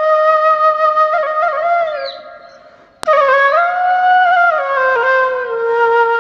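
Background music: a solo flute melody of long, held notes. It fades out about two and a half seconds in, then cuts back in with a click for a second phrase.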